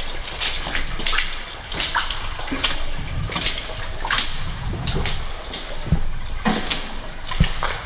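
Footsteps squelching through wet, sludgy mud in boots, at a slow walking pace, a step about every second.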